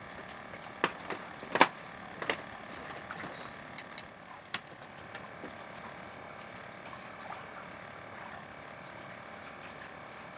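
Steady hum of a small running engine, with a handful of sharp clicks and knocks in the first few seconds, the loudest about one and a half seconds in.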